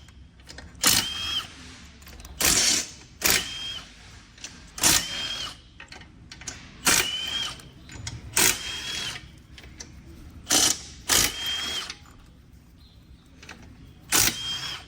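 A cordless power driver running down the bolts of a 6L80 transmission valve body, in about ten short whirring spurts a second or two apart.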